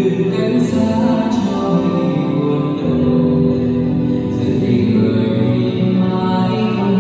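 Background music of slow, sustained held chords.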